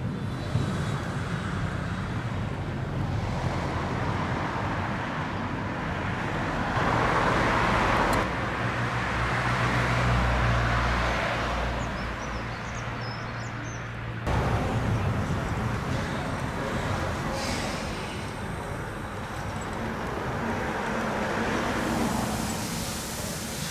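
Narrow-gauge steam train moving slowly through a station, its wagons rolling on the rails over a steady low hum. The sound changes abruptly about two-thirds of the way in.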